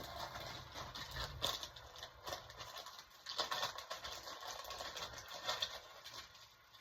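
Small metal engine parts handled by hand on a workbench: irregular light clicks, taps and scraping, fading near the end.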